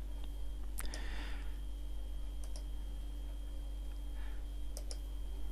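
Computer mouse buttons clicking a few times: a single click, then clicks in quick pairs, over a faint steady electrical hum.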